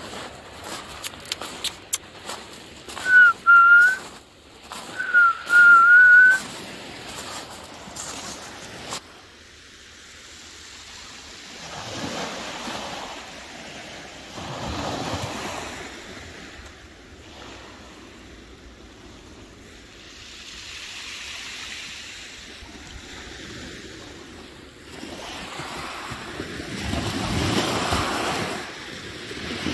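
Two loud whistles a few seconds in, each about a second long and wavering slightly in pitch, amid scattered clicks. Then sea surf washes in, swelling and fading every few seconds.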